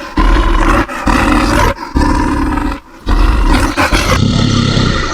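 Bear roar sound effect: a series of about four loud, rough roars, each about a second long, with short breaks between them.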